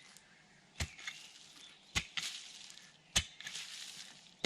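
A digging tool chopping into sandy garden soil: four sharp strikes about a second apart, each followed by a rustle of loosened soil and grass.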